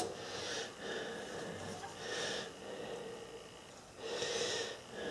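A person breathing out through the nose close to the microphone: three quiet breaths about two seconds apart.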